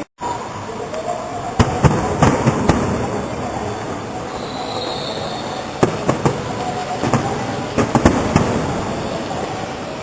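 Fireworks display: a steady rumble of exploding shells with sharp bangs and crackles, clustered about two seconds in and again from about six to eight and a half seconds.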